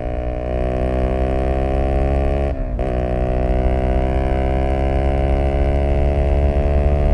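Zontes U125 scooter's single-cylinder 125 cc engine, fitted with an aftermarket Black Widow exhaust, pulling hard under throttle with its pitch climbing slowly. About two and a half seconds in the throttle is briefly shut and reopened, and the engine pulls and climbs again.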